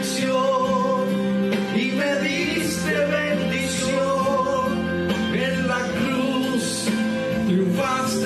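Live worship music: singing over a steady instrumental accompaniment, with long held notes.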